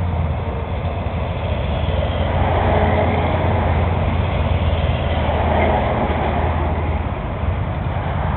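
Fuel-injected V-twin engine of a 2006 Harley-Davidson Heritage Softail idling steadily, warming up after a cold start.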